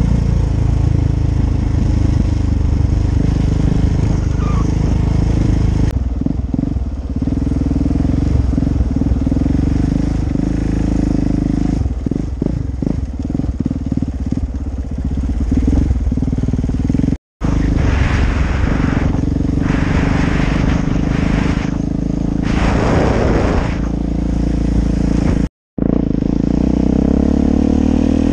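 KTM 690 Enduro R's single-cylinder engine running under way on a gravel road, with road and wind noise. The sound drops out completely twice, very briefly, partway through.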